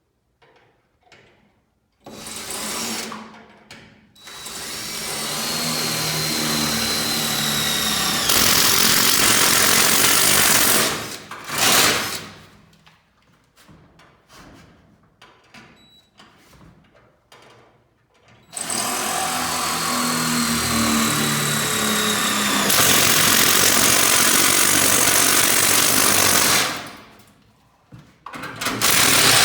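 Power drill boring into the sheet-steel garage door panel in two long runs of about eight seconds each, the sound growing louder and harsher partway through each run, with a couple of short bursts between.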